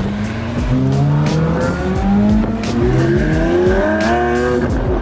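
Lamborghini Aventador's naturally aspirated V12 accelerating hard, its pitch climbing through a gear, dropping at an upshift about two and a half seconds in, then climbing again to another shift at the end.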